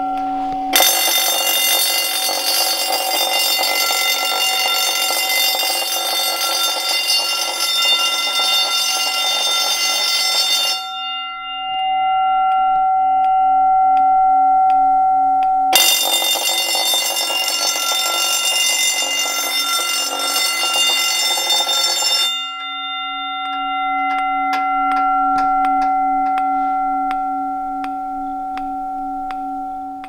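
Gentex GB10-24 10-inch vibrating fire alarm bell ringing in alarm, set off by a smoke detector: about ten seconds of rapid striking, a pause of about five seconds, then about seven seconds more. Through the pauses the gong's steady ringing tone hangs on.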